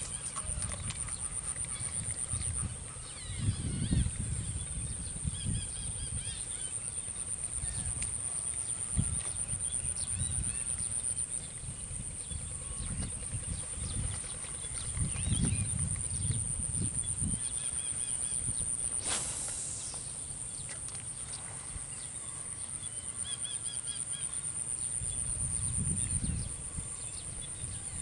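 Outdoor rural ambience beside a water channel: a steady high-pitched whine, three spells of low rumbling, and faint short bird-like calls now and then.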